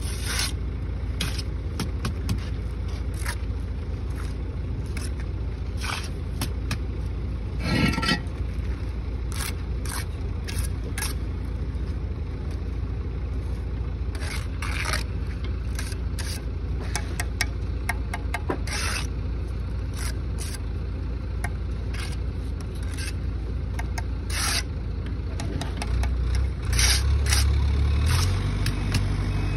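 Steel mason's trowel scraping and tapping on mortar and concrete blocks in short, irregular strokes. Under it runs a steady low engine rumble that gets louder near the end.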